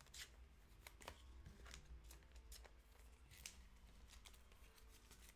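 Faint rustling and light clicks of trading cards and pack wrapping being handled, irregular and scattered, over a low hum.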